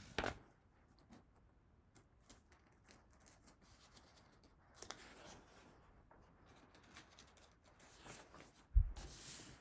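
Faint rustling and small clicks of a picture book's paper pages being handled and turned. Near the end comes a short thump, followed by a louder papery swish.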